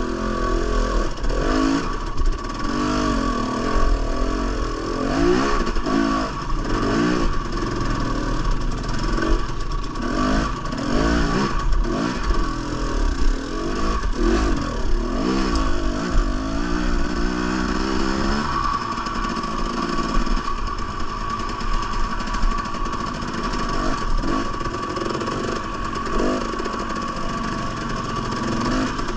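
Two-stroke dirt bike engine, a Husqvarna TE 300, revving up and down over and over under constant throttle changes as it picks its way slowly over rock. Scattered knocks and clatter of the bike against rock.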